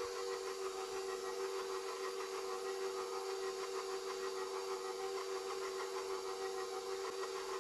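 KitchenAid bowl-lift stand mixer's motor running steadily at its lowest speed, driving the Spiralizer attachment as it cuts a zucchini into spiral noodles. A steady hum with an even whir above it.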